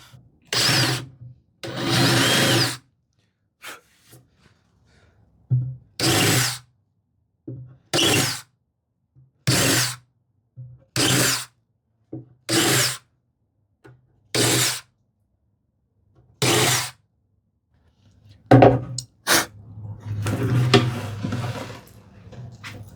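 Power drill with a countersink bit run in about nine short bursts, cutting countersinks into the wood for the leg screws. Near the end come a few sharp clicks and a longer, steadier stretch of noise.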